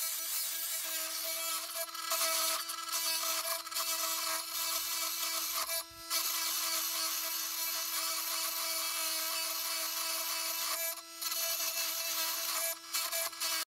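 Oscillating multi-tool running with a titanium-coated metal-cutting blade held against a steel drywall screw, giving a steady high buzz. The blade's teeth are already worn and it does not get through the screw. The tool stops briefly about six seconds in, again around eleven seconds, and once more near the end.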